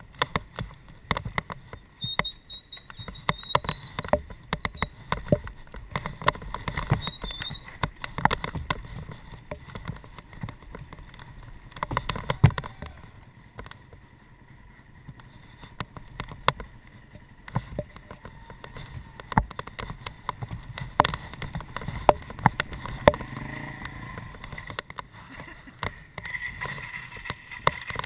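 Dirt bike riding over a rough, rutted dirt track, with irregular knocks and clatter from the bike and its handlebar camera mount over a low rumble. A high chirping call sounds twice in the first several seconds.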